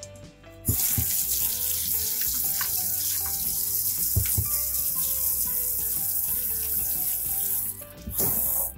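Water spraying from a hose nozzle over tumbled stones and ceramic media in a sieve and splashing into a sink, rinsing out the coarse silicon carbide grit slurry. It starts about a second in, cuts off near the end, then comes back in a brief burst.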